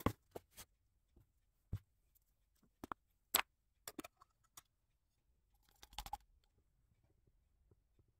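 Scattered light clicks and knocks of small paint jars and a paint can being handled on a workbench, the loudest about three seconds in, with a short cluster of small taps and rubbing around six seconds.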